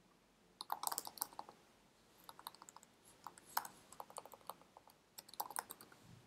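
Faint typing on a computer keyboard: three short runs of quick keystrokes, as a form field is retyped.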